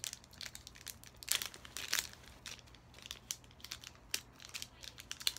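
Plastic candy wrapper crinkling in the hands as a packet of sour paper candy is worked open, in irregular crackles with a couple of louder bursts.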